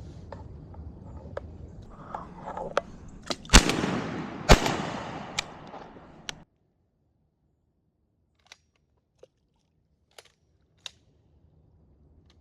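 Two shotgun shots about a second apart, starting around three and a half seconds in, each with a fading echo, among a few lighter clicks. The sound cuts off abruptly about six seconds in, leaving only faint scattered clicks.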